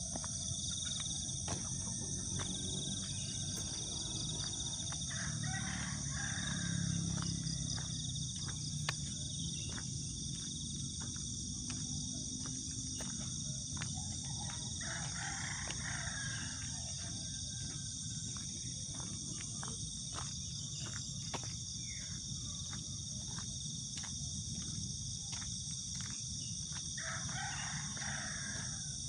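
A rooster crows three times, spread across the stretch, over a steady high-pitched insect drone and a low rumble.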